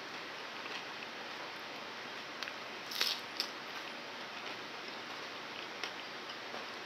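Crunching of unripe banana eaten with its peel: a few faint crisp clicks, then two louder crunches about three seconds in, over a steady hiss.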